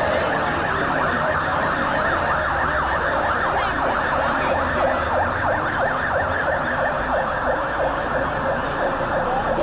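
Emergency vehicle siren sounding in a fast yelp, its pitch sweeping rapidly up and down several times a second, over a low steady rumble.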